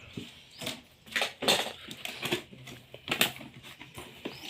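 Cardboard and plastic packaging of a boxed welding machine being handled and opened, with irregular rustling and crinkling bursts.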